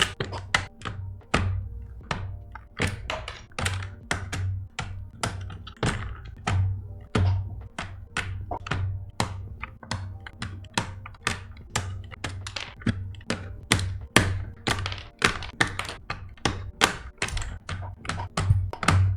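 Quick, repeated sharp plastic clicks and snaps, about two to three a second, as mechanical keyboard switches are pulled out of and pressed into the keyboard's plate, with music playing faintly underneath.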